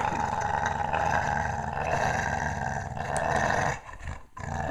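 Pet dog growling in one long, continuous, raspy grumble, likened to a Tasmanian devil. It breaks off briefly near the end and starts again.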